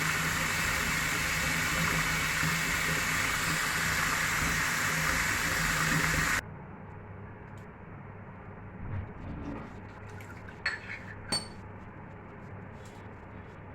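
Water spiralling down a drain in a whirlpool, a loud steady rush with a low hum through it, which stops abruptly about six seconds in. After that, faint water and a couple of sharp clinks.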